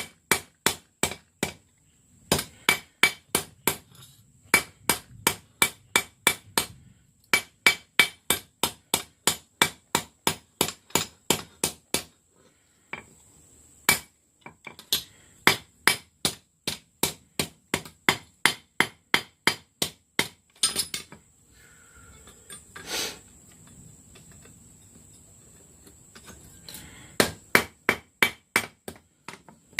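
Hammer blows on a hot piece of railroad-rail steel on an anvil, rounding the drawn-out taper. The blows come in quick runs of about three ringing strikes a second with short pauses between runs, and become sparser in the later part.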